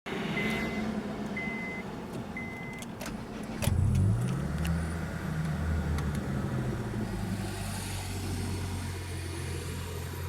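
Three short beeps about a second apart over a low hum. About three and a half seconds in, the Civic's 1.6-litre Honda D16V1 engine starts, its speed briefly rising before it settles into a steady idle. The engine has a vacuum leak after a D16Y8 intake conversion.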